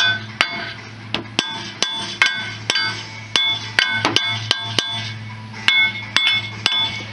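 Hammer blows on a steel jaw gear puller clamped to a seized front brake rotor, about two sharp ringing metallic strikes a second, with a short pause about five seconds in. The rotor is rusted fast to the hub and not coming loose.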